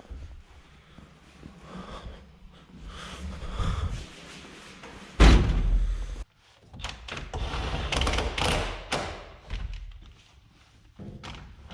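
A heavy slam about five seconds in, the loudest sound, followed by a few seconds of irregular knocking and rattling.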